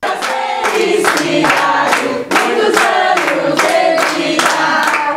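A group of voices, children among them, singing a birthday song together, with hand-clapping in time about twice a second.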